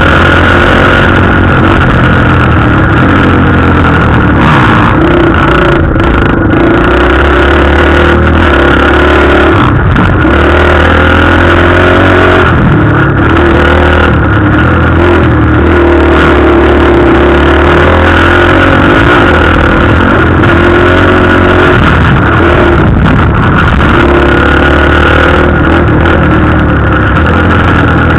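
Dirt bike engine, heard close from the rider's own bike, running loud and revving up and down as it is ridden through corners and straights on a motocross track.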